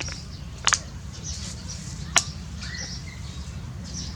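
Small birds chirping repeatedly over a steady low rumble, with a sharp double click about two-thirds of a second in and a louder single click a little after two seconds.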